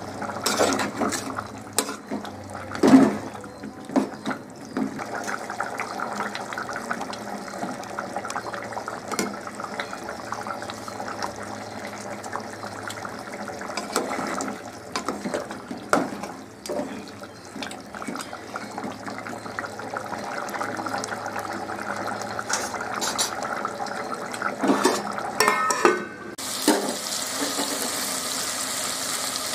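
Mutton curry bubbling in an aluminium pot, stirred with a metal ladle that knocks against the pot several times. Near the end it changes to a steady hiss.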